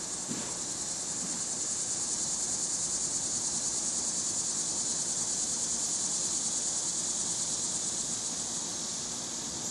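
Insects calling outdoors in a steady, high-pitched, rapidly pulsing drone that swells about a second in and eases off near the end.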